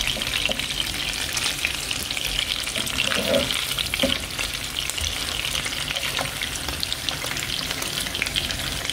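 Chicken pieces frying in hot oil in a pan: a steady, dense sizzle and crackle, with the odd knock of a plastic spatula turning the pieces.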